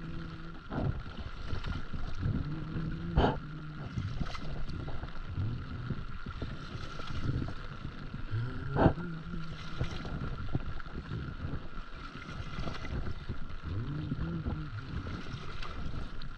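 Stand-up paddleboard paddle strokes: the blade pulling through the water every few seconds, with wind noise on the microphone. Two sharp knocks, the loudest sounds, come about three and nine seconds in.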